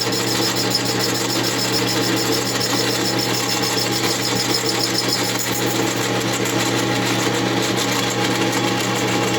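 Metal lathe running steadily with a constant motor hum and whine, spinning the chainsaw cylinder on its mandrel.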